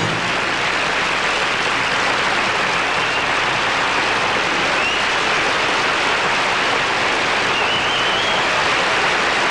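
Studio audience applauding steadily at the end of a song.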